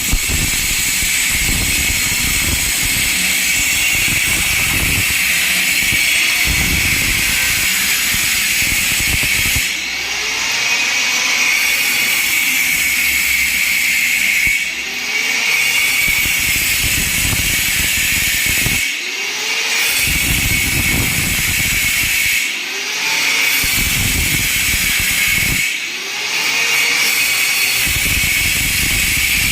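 Handheld electric grinder running under load with a steady high whine and a gritty hiss. The sound dips briefly about five times as the cut eases and picks up again.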